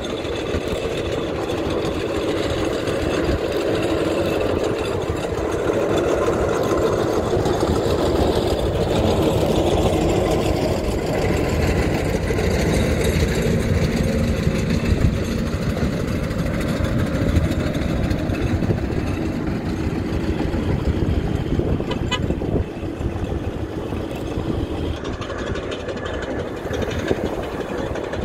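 Steam road engine running along the road, a steady heavy mechanical noise from its engine and wheels.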